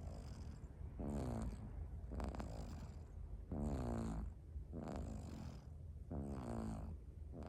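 A sleeping cat snoring loudly: about five buzzing snore breaths, a little over a second apart.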